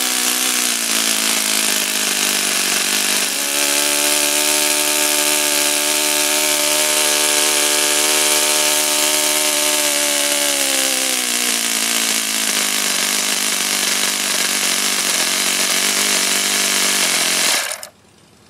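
OS FS-48 Surpass four-stroke model glow engine running hard on a test stand. Its pitch rises about three seconds in, holds near 9,000 RPM, sags slightly, then the engine cuts out abruptly near the end. The engine has an air leak in the carburettor intake, so only the high-speed setting can be tuned.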